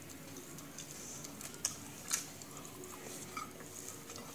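A person chewing food close to the microphone, quiet and wet, with a few soft mouth clicks.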